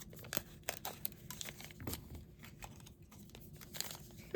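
Packaging crinkling and tearing in quick, irregular crackles as a small collectible toy piece is unwrapped by hand.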